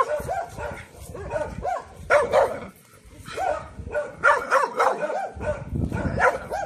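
Young Taiwan dog (Formosan mountain dog), about six months old, giving a rapid volley of warning barks at an approaching stranger, each bark a short rise and fall in pitch, with a brief break about three seconds in.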